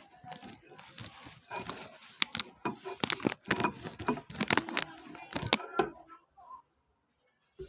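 A spoon stirring thick Milo batter in a bowl: irregular scraping and sharp clicks against the bowl, stopping about six seconds in.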